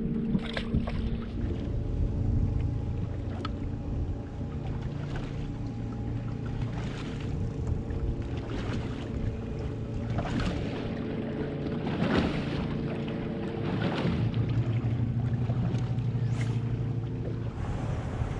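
Motorboat engine running steadily on the water, with short rushing, sloshing sounds every second or two.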